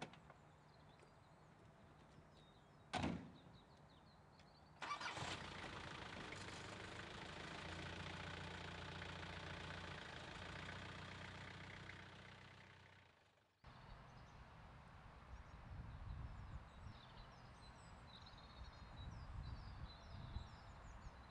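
A single car-door thump about three seconds in. Shortly after, a London black cab's diesel engine starts and runs steadily, then fades out and cuts off just past halfway. After the cut, faint bird chirps sound over a quiet outdoor background.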